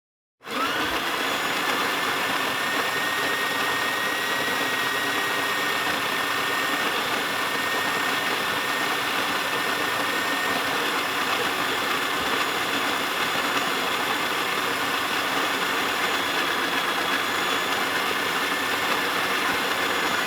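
Breville electric coffee grinder switching on about half a second in and then grinding coffee steadily, an even motor whine over the noise of the grinding.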